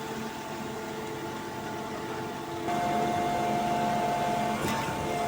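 Concrete pump and truck engines running steadily, a hum with several held tones that gets louder about two and a half seconds in, with a brief sharp hiss near the end.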